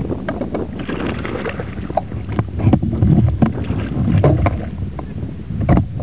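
Wind buffeting the microphone in gusty low rumbles, with scattered sharp clicks and knocks as a fish is reeled in and the rod is handled in a fishing kayak.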